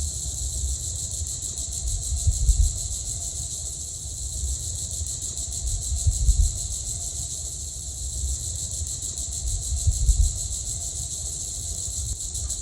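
A steady high-pitched insect chorus, with a dull low thump three times about four seconds apart.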